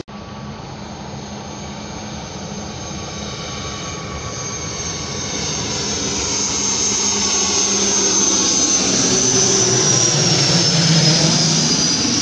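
ATR 72-600 twin-turboprop airliner on low approach, its Pratt & Whitney PW127 engines and propellers droning with a high whine. It grows steadily louder as it nears overhead, and the whine slides down in pitch near the end as it passes.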